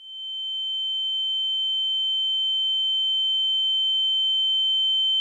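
A steady, high-pitched electronic tone held without a break, with a fainter lower tone beneath it; it swells in over about the first second.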